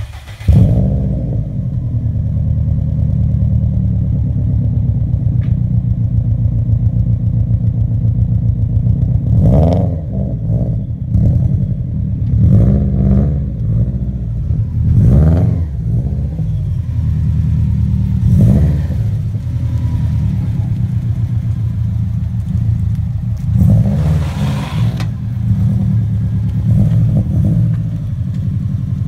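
2005 Subaru WRX turbocharged flat-four through an aftermarket uppipe, Invidia downpipe and Blitz Nur Spec R cat-back exhaust. It starts up about half a second in, then idles with a steady low note and is revved briefly several times.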